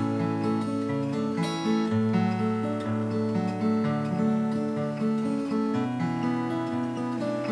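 Acoustic guitar strumming chords, the notes ringing on and changing every second or so: the instrumental lead-in before the singing.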